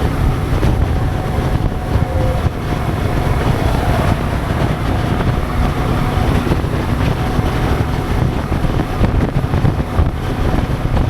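Steady wind rush buffeting the microphone of a motorcycle riding at road speed, with engine and road noise underneath.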